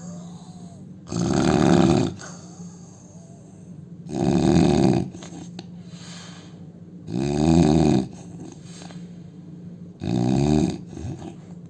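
A man snoring: four loud snores about three seconds apart, each lasting about a second.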